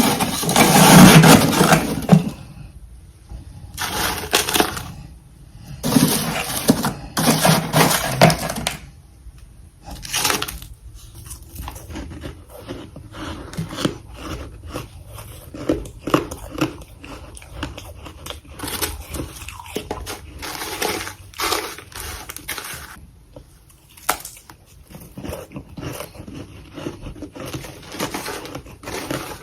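Freezer frost being bitten and chewed close to the microphone. Loud, dense crunching fills the first two seconds, then several separate bursts of crunching come a second or two apart, giving way to softer, continuous crackly chewing.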